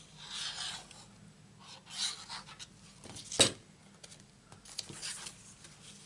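Sheets of cardstock being handled and shifted across a craft mat: soft paper rustles and rubs, with one sharp tap about three and a half seconds in.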